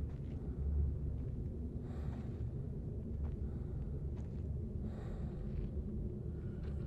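Steady low wind rumble in open country, with two soft puffs of noise about three seconds apart, like slow breaths.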